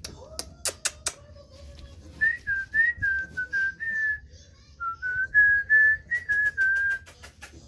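Someone whistling a short tune of clear, high notes that step slightly up and down, with a brief pause midway. Sharp clicks come about a second in and again near the end of the tune.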